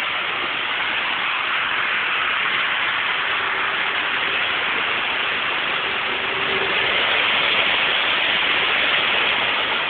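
Heavy rain falling steadily, with cars swishing through floodwater on the street, their tyres throwing up spray. The hiss swells for a few seconds near the end.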